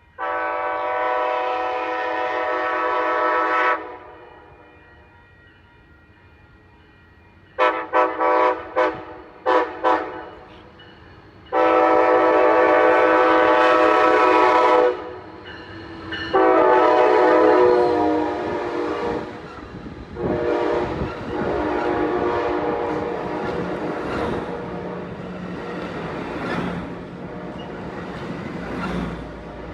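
Amtrak Pacific Surfliner train horn playing a horn show. A multi-tone chord horn sounds a long blast of about four seconds, then a string of quick short toots, then two more long blasts, the last fading as the train rolls past.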